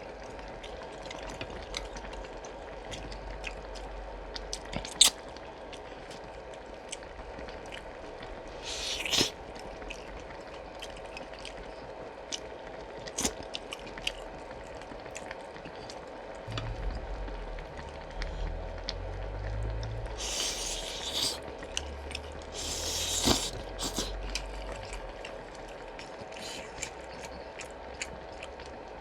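Close-up eating of pork-bone soup: wet chewing and a few slurps, with many small clicks and taps of utensils and bones.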